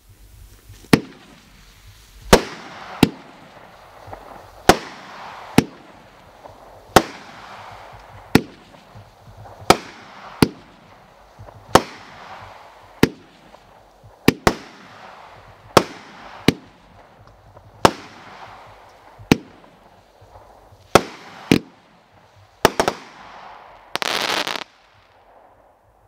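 Cutting Edge 'Lightning Strike' consumer firework cake firing: about twenty sharp bangs, roughly one a second, each fading out over about a second. Near the end comes a louder half-second rush of noise.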